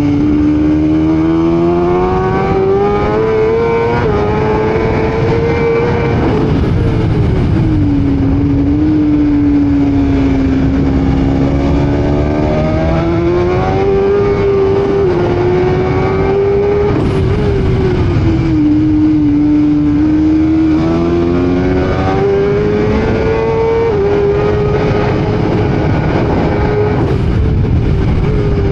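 BMW M1000RR's inline-four engine at full track pace, revving up through the gears and dropping in pitch on the brakes and downshifts about three times, under a steady rush of wind noise.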